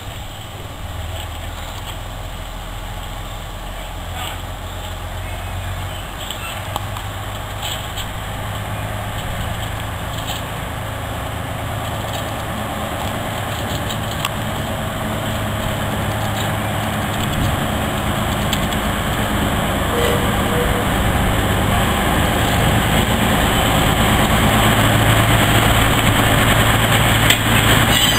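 Shunting locomotive dressed as Toby the Tram Engine running with a steady engine drone, growing gradually louder as it approaches and draws a coach past.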